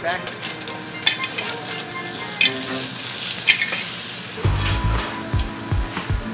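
Butter sizzling in a hot steel sauté pan over a gas burner, with a few sharp clicks. Low, uneven thumping joins in about two-thirds of the way through.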